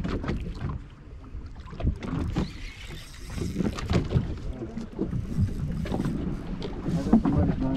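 Irregular knocks and bumps aboard a small fishing boat, over a low rumble of wind on the microphone.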